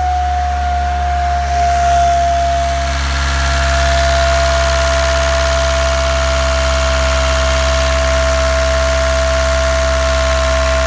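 2009 Volkswagen Jetta SportWagen TDI's 2.0-litre four-cylinder diesel idling with a loud, steady high-pitched whine that dips slightly in pitch in the first few seconds and then holds. The whine comes from the turbocharger, whose compressor fins had blown apart (code P0299, underboost).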